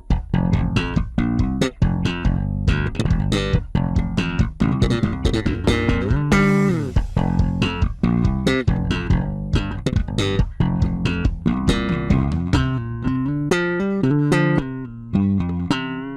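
Fender Deluxe Jazz Bass with a deOliveira active preamp circuit, played as a run of fast, sharply attacked notes, then longer held notes in the last few seconds.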